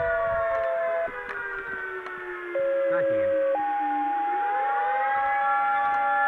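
Dispatch radio tone-out: steady paging tones, with a short lower tone then a higher one held about three seconds, over a fire siren that winds down in pitch and rises again about four seconds in.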